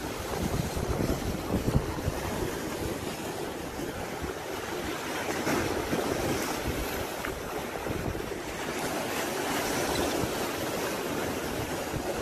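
Wind buffeting the microphone, over the steady wash of sea waves.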